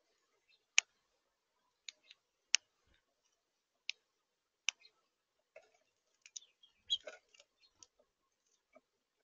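Sharp, irregular clicks and taps at a seed-filled bird feeder, about one a second at first, then a quicker flurry of taps with a soft thump about seven seconds in.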